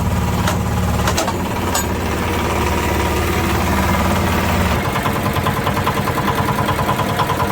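Hydraulic press baler's power unit running steadily, with a few sharp clicks in the first two seconds. About five seconds in its note changes to a fast, even pulsing.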